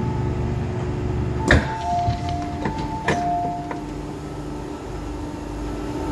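MTR M-Train doors opening: a sharp clunk, then two steady electronic tones lasting about two seconds with a few knocks as the doors slide open, over the train's low rumble.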